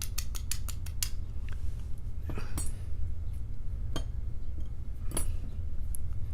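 Small metal clicks and light clinks of a padlock's pins, springs and tools being handled as the lock is taken apart: a quick run of clicks in the first second, then single clicks every second or so, over a steady low hum.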